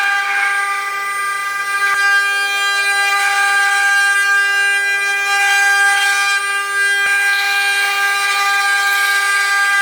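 CNC milling machine spindle running at speed with a steady high-pitched whine, with a rougher cutting hiss that swells and fades over it.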